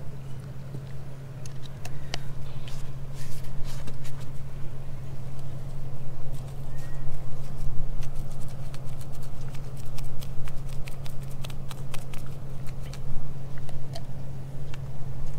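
Chip brush dabbing and stippling resin into small patches of fiberglass mat, an irregular patter of light taps, over a steady low hum.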